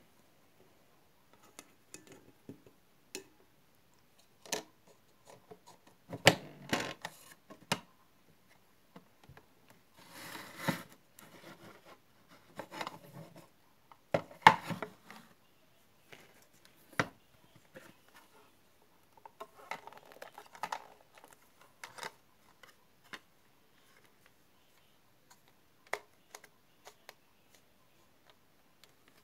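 Handling noise of small objects on a desk: scattered clicks and knocks of plastic cases being picked up and set down, with short stretches of rustling in between.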